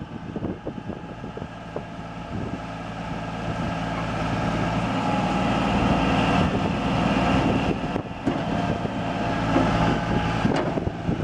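New Holland LS180 skid steer's diesel engine running, growing louder over the first several seconds and then holding steady, with a few knocks early on.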